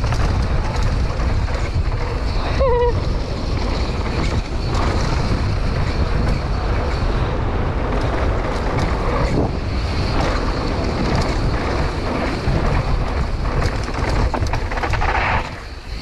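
Wind rushing over a GoPro's microphone and tyres rumbling on a dirt trail as a Scott Gambler downhill mountain bike is ridden fast, a loud steady roar of noise.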